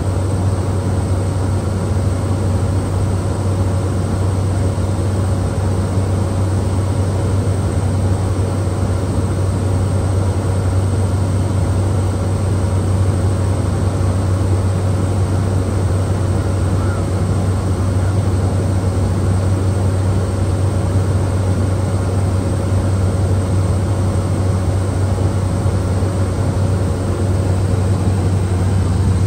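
Cockpit cabin noise of a Cessna Caravan in cruise flight: its single Pratt & Whitney PT6A turboprop engine and propeller running at a steady low drone, with a fainter steady higher tone over it.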